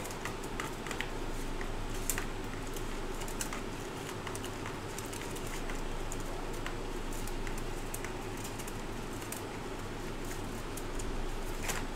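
Small scattered clicks and light rattles of hands rummaging through a clear plastic box of reballing stencils, over a steady low electrical hum.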